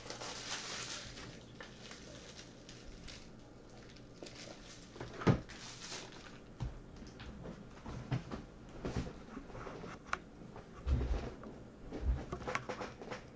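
Rummaging and handling sounds: scattered knocks, rustles and clicks as plastic card top loaders are fetched. A sharp knock comes about five seconds in, and a couple of dull thumps near the end.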